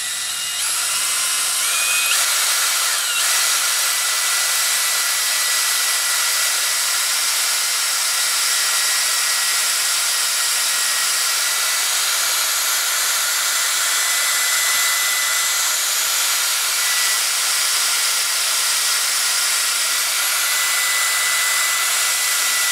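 Cordless drill drilling a 3 mm pilot hole down the centre of a broken exhaust manifold stud stuck in the cylinder head, the bit guided by a machined collar. The drill speeds up over the first couple of seconds, then runs steadily.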